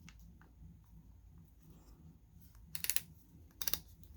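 Two short bursts of rapid clicking, less than a second apart, about three seconds in, as a cordless drill or impact driver is handled and its plastic controls are worked.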